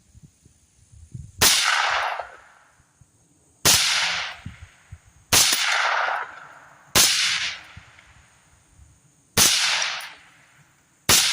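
Suppressed 10.5-inch AR-15 firing .223 Remington 55-grain rounds through an OCL Polonium suppressor: six single shots at an uneven pace, about two seconds apart. Each shot is a sharp report that trails off in echo for about a second.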